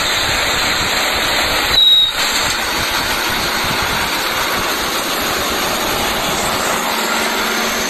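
Isuzu Giga FVM diesel box truck driving past close by: a steady rush of engine and tyre noise. Around two seconds in the sound briefly jumps louder and breaks off, then carries on steadily.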